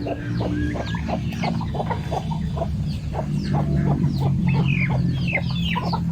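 A flock of chickens clucking, many short calls overlapping, with higher, sharp downward-sliding squawks among them, over a steady low hum.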